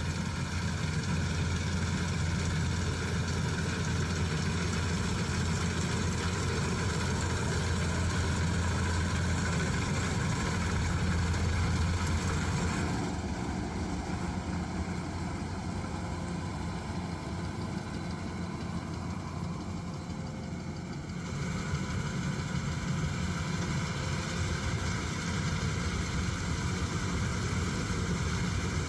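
Kubota DC-108X combine harvester's engine running steadily with a strong low hum. Its higher-pitched noise fades for several seconds partway through, then comes back.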